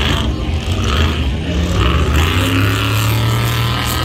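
Ultra4 off-road race cars' engines running hard on the dirt track, with one engine's pitch climbing as it accelerates in the second half.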